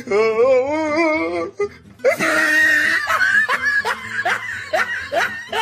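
Edited-in comedy soundtrack: a wavering, warbling note for about a second and a half, then a burst of laughter that goes on as a run of short, rising 'ha' sounds.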